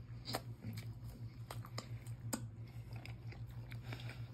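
A man chewing a mouthful of meat pilau, with soft, irregular chewing clicks over a steady low hum.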